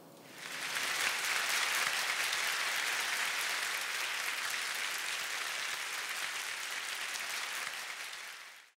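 Audience applauding, swelling up about half a second in, holding steady, then fading and cutting off abruptly just before the end.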